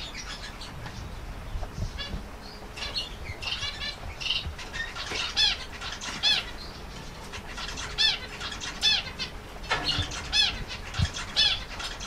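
Small cage birds chirping: a string of short, high, arching calls, about one or two a second, over a low background hum.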